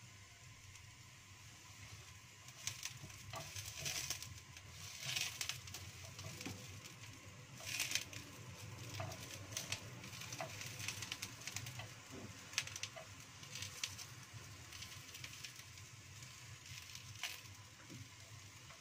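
Eggplant pieces sizzling faintly in a non-stick wok. Wooden chopsticks click and tap irregularly against the pan as the pieces are turned over.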